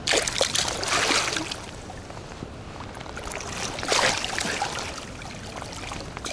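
A pike thrashing in shallow water at the bank, splashing hard straight away and again about four seconds in.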